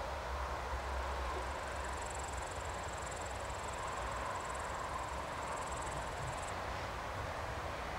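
Bombardier Traxx locomotive approaching at low speed: a steady low rumble with a hiss. A thin, high buzz runs from about two seconds in until about six and a half seconds.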